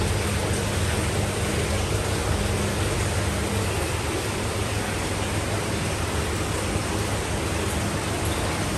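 Steady rushing noise with a low hum underneath, from an electric fan and aquarium air and water pumps running.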